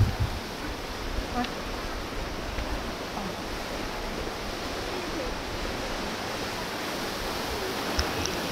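Steady, even outdoor hiss from the sea and the vegetation around, with a little low wind rumble on the microphone at the start.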